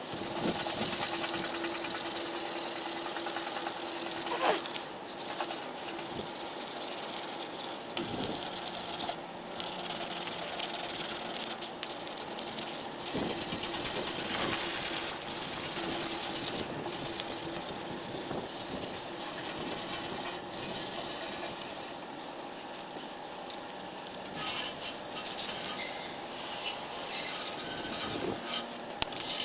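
Abrasive scrubbing on the rusty metal body of a jerry can, rust being worked off in a continuous rasping scrape broken by many brief pauses.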